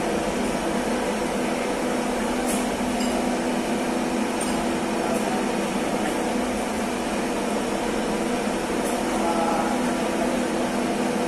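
Ship's engine-room machinery running with a steady drone and a hum of several even tones, with a few faint clinks.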